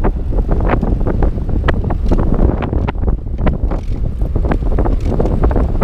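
Wind buffeting the camera's microphone during a hybrid bike ride on a tarmac road: a steady low rumble with frequent sharp, irregular knocks and rattles.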